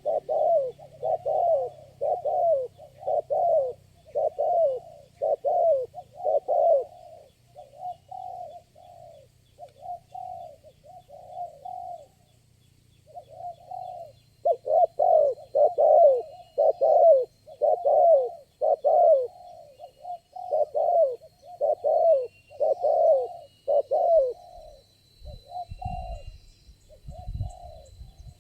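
Spotted doves cooing in a steady run of short repeated notes, about one and a half a second; the calls turn softer for a few seconds, stop briefly about twelve seconds in, then come back loud. A few faint low thuds near the end.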